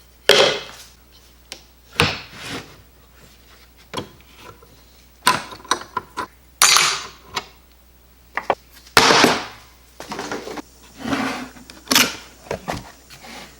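Irregular knocks, clatters and short scrapes of tools and wooden boards being handled and set down on a workbench, about a dozen separate sounds with quiet gaps between them.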